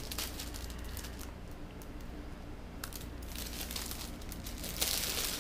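Foil-lined plastic mailer bag crinkling and tearing as it is pulled open by hand, in scattered crackles, with a louder rustle near the end.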